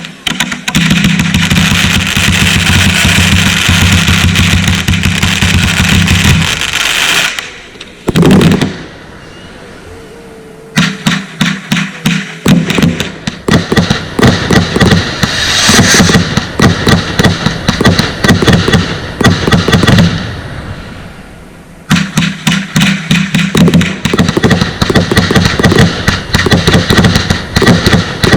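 Consumer fireworks firing in fast volleys of shots and crackles, dropping into two short lulls about eight and twenty seconds in before the firing picks up again.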